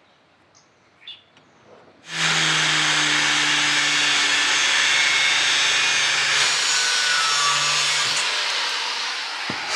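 Handheld angle grinder with its disc on steel, starting about two seconds in: a loud, steady grinding hiss over the motor's hum. It eases off near the end.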